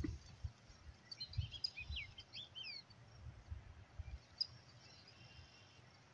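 Small birds chirping: a quick run of short sliding notes between about one and three seconds in, then a few single chirps, over a low irregular rumble that fades out about four seconds in.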